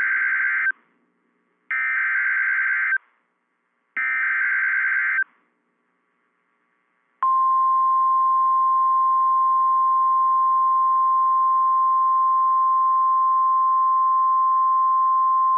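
NOAA Weather Radio alert signals: three bursts of the digital SAME header data tones, each just over a second long and about a second apart. About seven seconds in, the steady 1050 Hz warning alarm tone starts and holds, marking the start of a new alert.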